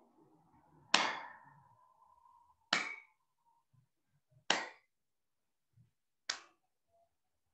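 Four sharp smacks at an even pace, a little under two seconds apart, each dying away quickly; the first is the loudest.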